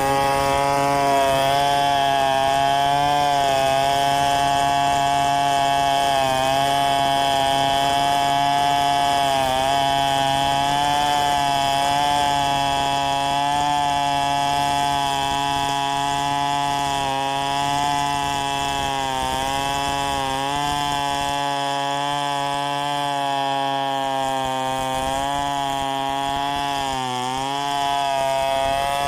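A large two-stroke chainsaw held near full throttle while freehand ripping a log lengthwise. The engine note sags briefly several times as the chain loads up in the cut, then recovers.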